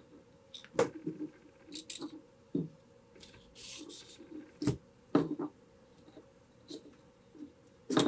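Handling noise of paracord and a wire lead being worked through drilled hardwood nunchaku sections: scattered light knocks and clicks of wood and wire on the workbench, with a short scraping rasp of cord being pulled through about three and a half seconds in.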